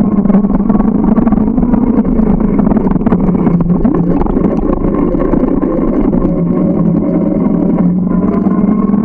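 Steady running drone of a moving bike, a low hum whose pitch drifts slightly up and down.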